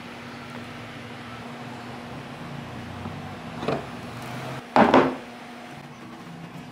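A saucepan being handled on a wooden tabletop: a light knock, then about a second later a louder thump, over a steady low background hum.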